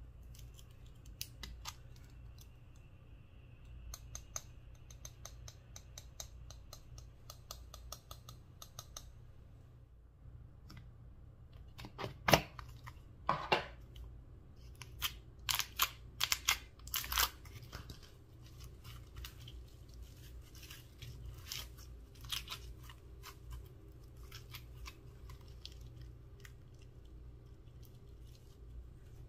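Close handling sounds of slime play: light rapid clicking while a glitter tube is opened and emptied, a handful of louder sharp pops and clicks about halfway through as red slime is handled, then scattered soft crackles as the red slime is stretched.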